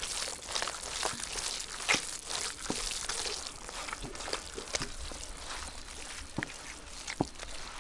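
A hand squeezing and turning a thick, wet chicken masala marinade on a steel plate: soft, irregular squelches and small clicks over a steady background hiss.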